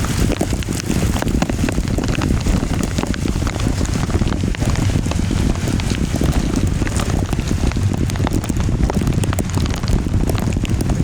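Heavy rain pouring and pattering on surfaces in a storm, over a steady low rumble.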